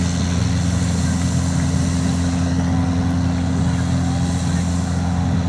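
A steady, unchanging low engine drone with a constant hum, over a noisy background, with faint distant voices.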